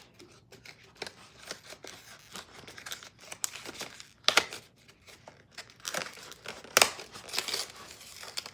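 Advent calendar compartment being forced open and its contents unwrapped: irregular crinkling and tearing of packaging, with sharp crackles about four and seven seconds in.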